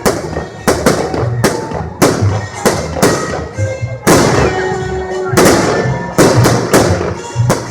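Victory Day fireworks salute: a rapid, irregular series of shell bursts, about two loud bangs a second, each trailing off in a crackling echo.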